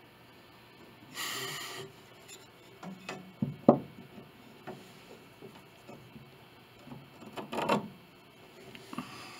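Handling noises as a wooden measuring stick, steel rule and pencil are worked on a grand piano's iron plate. There is a short scrape about a second in, a few knocks with one sharp one about a third of the way through, and another short scrape and knock near the end.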